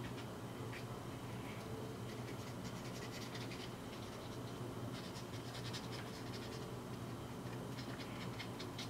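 Faint scratching and rubbing of fingertips working moldable epoxy putty onto a plastic glasses frame, in scattered small strokes over a steady low hum.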